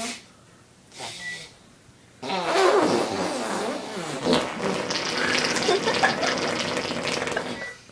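A person making fake fart noises with body and breath: a short one about a second in, then a long, sputtering, wavering one lasting about five seconds.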